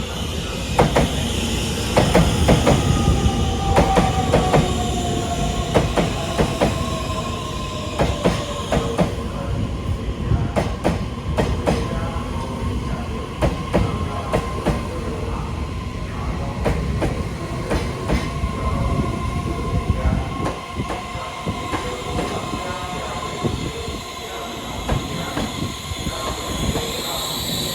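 Taiwan Railway EMU3000 electric train running on the rails: a steady run of rumble with many irregular clicks and knocks from the wheels, under a motor whine whose pitch falls over several seconds early on, and a high hiss.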